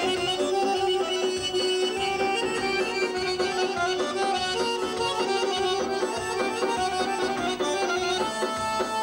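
Two Azerbaijani garmons (button accordions) playing a folk tune together, a melody running over a steadily held low note.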